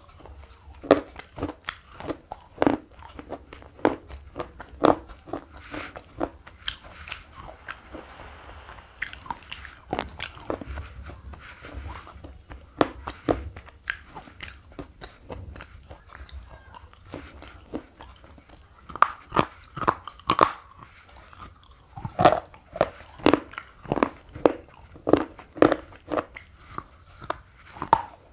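Slate pencil being bitten and chewed, with sharp, irregular crunches. The crunches are sparser in the middle and come quickly again in the last third.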